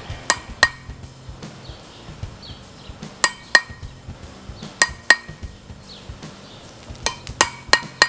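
A hammer tapping a small chisel to incise designs into the steel spine of a seax: sharp, ringing metallic taps, mostly in pairs and threes with pauses between.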